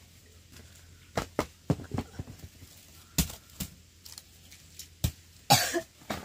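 A series of sharp, irregular knocks and clicks, about seven, followed near the end by a short harsh scrape, the loudest sound.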